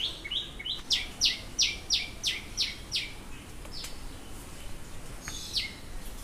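A songbird calling a quick series of sharp, downward-sliding notes, about three a second, for a couple of seconds, then two more single notes.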